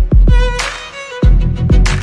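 Background music: a pitched melody over a heavy, repeating beat.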